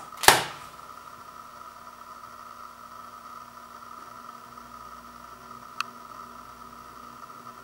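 Plastic Blu-ray case set down on a hardwood floor: one sharp clack just after the start. After it there is only a steady background hum, with a faint tick about three-quarters of the way through.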